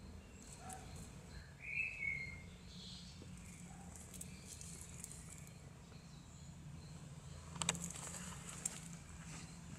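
Quiet woodland ambience over a low steady hum, with one short falling bird chirp about two seconds in. Brief crackling rustles in dry leaf litter come near the end.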